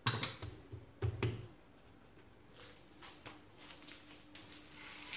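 Two dull thumps about a second apart as the rolled keema paratha is handled on a plastic rolling mat, then faint light knocks and rustles while it is lifted and carried to the tawa.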